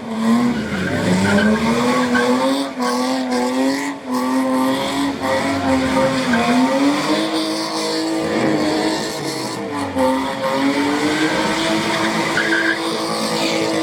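A car doing a burnout: the engine is held at high revs with its pitch dipping and climbing back several times, tyres spinning on the tarmac.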